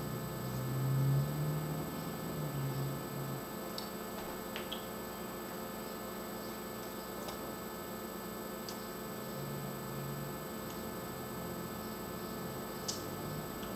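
Steady electrical hum and hiss from a webcam microphone, with a few faint ticks scattered through it.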